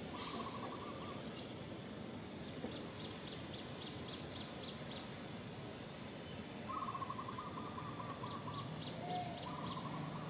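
Outdoor birdsong with a short, loud, high-pitched burst right at the start. A low quavering trill comes three times, and runs of quick high chip notes at about five a second come twice.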